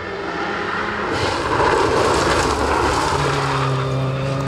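Rally car driving past at speed on a gravel stage: engine and gravel noise grow louder from about a second in, peak around two seconds, then carry on as a steadier engine tone while it moves away.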